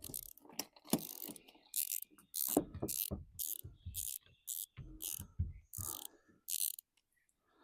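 Spincast fishing reel with its cap off, its mechanism ratcheting in short rasping bursts about two a second, with handling knocks, while tangled line is cleared from under the spool.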